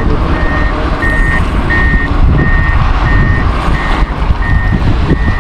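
A vehicle's reversing alarm beeping steadily, about eight short single-pitch beeps evenly spaced, over a loud, steady low rumble.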